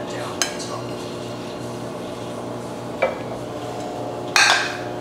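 Kitchen utensil work: a serving spatula scraping and tapping in a stainless frying pan as pasta is dished onto a ceramic plate, with sharp clicks about half a second and three seconds in. A louder clatter of dishes comes near the end, over a steady low hum.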